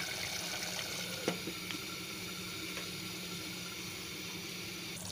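Potato curry gravy simmering in a pot on a low gas flame: a steady bubbling hiss, with a faint low hum underneath and a small click about a second in.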